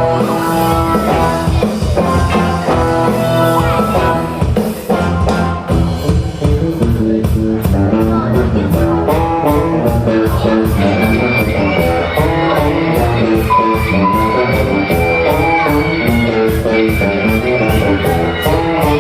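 A live band playing: a guitar melody over bass guitar and a drum kit, with steady cymbal strokes in the second half.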